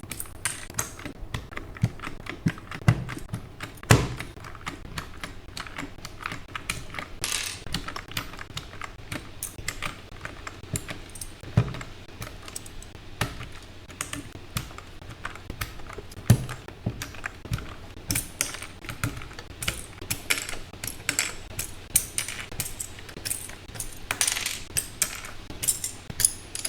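Keycaps being pried off a Keychron K6 mechanical keyboard one after another: irregular sharp plastic clicks and snaps, coming faster and more often in the last third.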